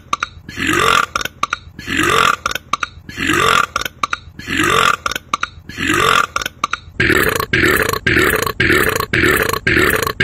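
A man's belch repeated over and over at an even pace, each one alike, about one a second. About seven seconds in it quickens to about two a second.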